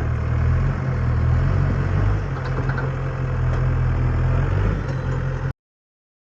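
Diesel engine of an earth-moving machine running steadily at a low, even speed, then cutting off suddenly near the end.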